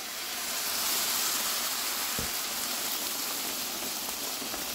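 Rava upma sizzling steadily in a hot non-stick pan as it is stirred with a wooden spatula, the hiss of a little water added to the roasting semolina; it swells over the first second and holds, with a soft knock of the spatula about two seconds in.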